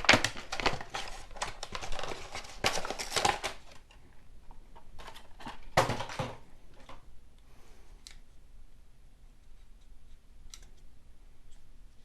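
Handling noise of a hand-held tool: a quick run of plastic clicks, rattles and rustles for about three and a half seconds, then a few scattered clicks.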